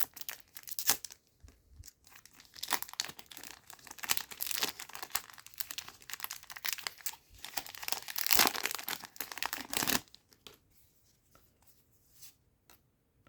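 A One Piece Card Game booster pack's foil wrapper being torn open and crinkled, in irregular rustling bursts for about ten seconds before dying down to faint handling noise.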